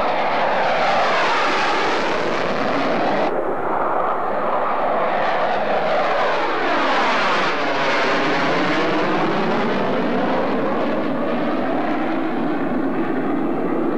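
Jet noise from an F-4 Phantom II's twin J79 turbojets as the fighter climbs out after takeoff, passes over and heads away. A loud, steady rush whose tone swirls and sweeps down and back up around the middle as it goes over.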